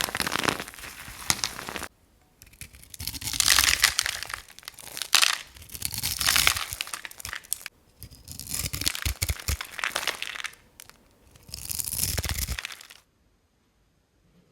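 Dry soap being crunched: dense crackling and snapping in four bursts separated by short pauses, stopping abruptly near the end.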